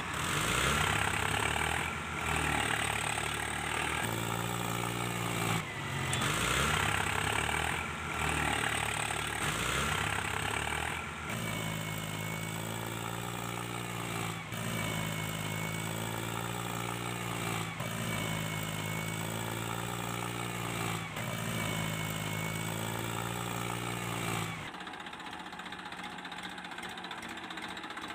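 Tractor engine running at a steady chug, repeating about every one and a half seconds. It changes character about eleven seconds in and turns quieter near the end.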